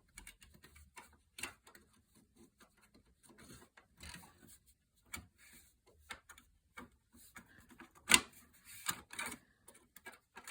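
Scattered light clicks and plastic handling sounds as PC2-4200 DDR2 memory sticks are fitted into the memory slots of a Power Mac G5 Quad, with the sharpest click about eight seconds in.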